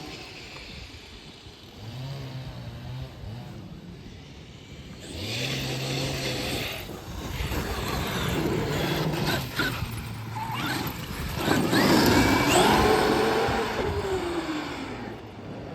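Traxxas XRT brushless electric RC monster truck driving: the motor and drivetrain whine rises and falls in pitch as it speeds up and slows, with tyre noise on the ground, loudest about twelve seconds in.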